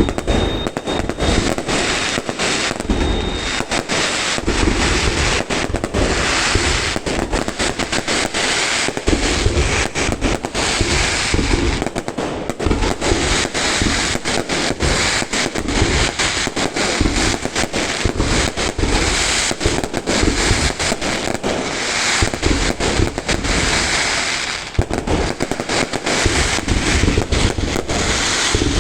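A fireworks display going off in dense, rapid succession: many overlapping bangs and crackles with hardly a gap, easing briefly about 25 seconds in before picking up again.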